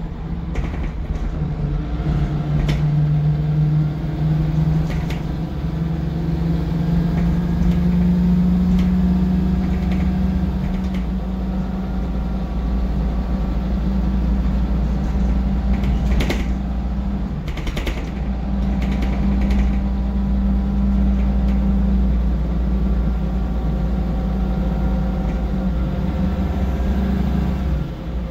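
Inside a MAN 18.240 Enviro 300 single-deck bus on the move: the six-cylinder diesel engine runs under a low rumble, its pitch rising and falling with the revs. A few short rattles and knocks from the bodywork come about halfway through.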